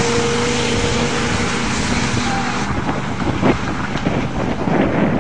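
Engines of a dump truck and a motorhome running hard as they race across a field, heard from a distance as a steady drone that drops away a little over halfway through. Wind rushes over the microphone, with a brief thump later on.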